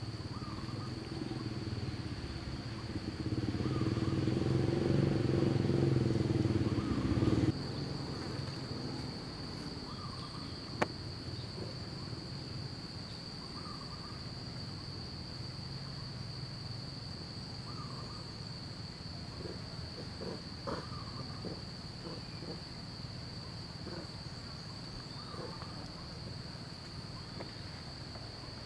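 Steady high-pitched drone of insects, constant throughout. A louder low rumble underlies the first seven seconds or so and cuts off abruptly, and a faint short call repeats every couple of seconds.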